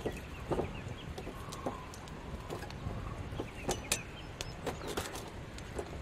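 Wood fire crackling, with irregular sharp pops from burning split logs in a steel fire pit. Faint bird calls can be heard behind it.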